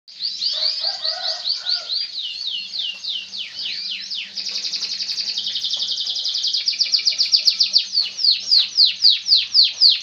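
Canary singing a continuous song of repeated downward-sweeping notes, breaking into a fast, dense trill about four seconds in and then into slower, louder sweeping notes.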